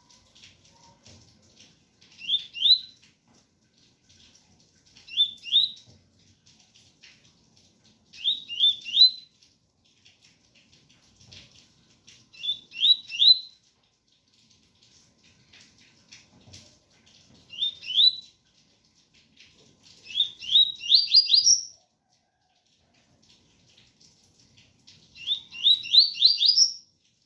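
Double-collared seedeater (coleiro) singing its 'tui-tui' song: short phrases of two to five quick, rising whistled notes, repeated every two to five seconds, with the longest phrases near the end.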